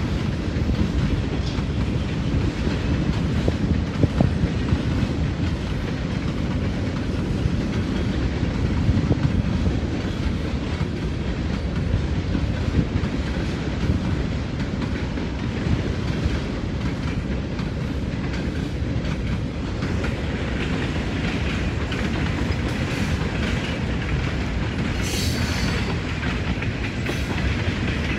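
Freight train cars rolling past, a steady rumble with clickety-clack of wheels over rail joints, and a brief high squeal near the end.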